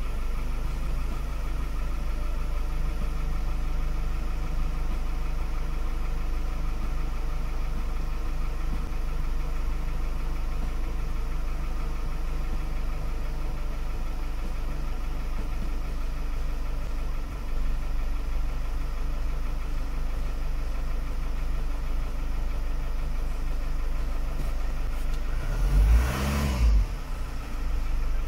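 Van engine idling steadily just after a start, with a brief louder thump and rumble near the end.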